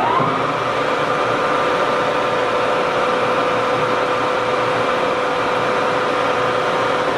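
29-inch by 80-inch Monarch engine lathe running under power with its chuck spinning at a set speed: a steady mechanical hum with a constant whine held at one pitch.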